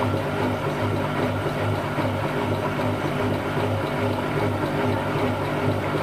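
Siemens Siwamat 7163 iQ washing machine running with its drum turning: a steady motor hum with a slow, regular throb.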